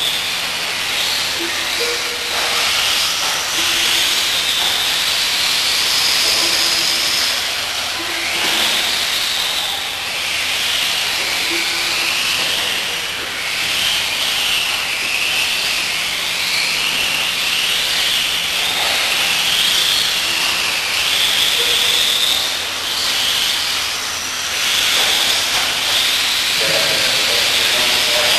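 Several electric 1/10-scale RC off-road buggies racing, their motors and gears giving a high-pitched whine that rises and falls as they accelerate and slow for the corners, over a steady hiss.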